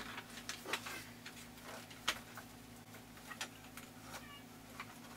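Small irregular plastic clicks and taps as a 1/6 scale action figure and its accessories are handled, over a faint steady hum.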